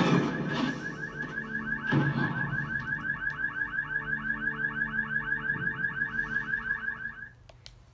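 Car alarm warbling in fast, even pulses, about eight a second, played from the film's soundtrack through a TV speaker; it cuts off suddenly near the end. A louder noise dies away in the first second, and there is a single thump about two seconds in.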